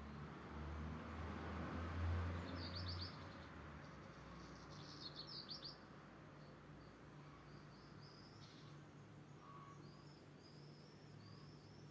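Small birds chirping, with two quick trills of rapid high notes in the first half and a string of short high chirps later on. A low rumble runs underneath and is loudest in the first three seconds.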